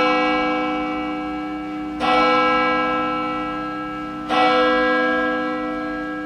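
A church bell tolling: struck at the start and again about two and about four seconds in, each stroke ringing on and slowly fading.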